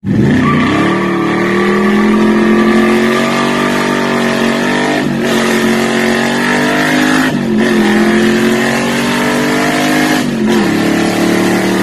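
Carbureted V8 of a 1970 Chevelle accelerating hard through the gears: the engine note climbs steadily, drops briefly at each of three upshifts a few seconds apart, and climbs again.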